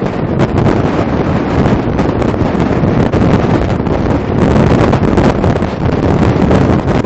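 Wind buffeting the microphone on a load riding at highway speed, a loud, fluttering rush over the low rumble of the truck and trailer on the road.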